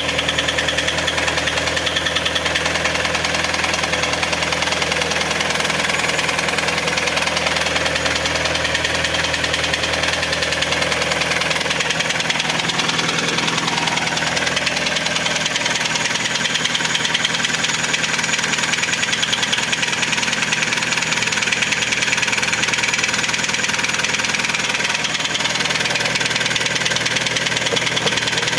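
Hyundai ix35's G4KD 2.0-litre four-cylinder petrol engine idling from cold with very heavy, rapid knocking, which the owner places in the piston area. The low running note drops a little about twelve seconds in.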